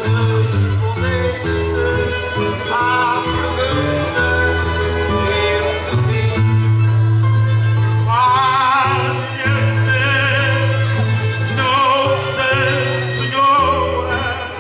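Traditional Azorean cantoria ao desafio: acoustic guitar, viola da terra and another plucked string instrument play a repeating strummed and picked accompaniment. About eight seconds in, a man begins singing over it with a strong vibrato.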